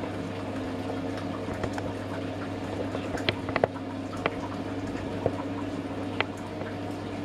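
Copper pot still running during a brandy distillation: steady boiling, liquid sound over a constant low hum, with several sharp ticks in the middle.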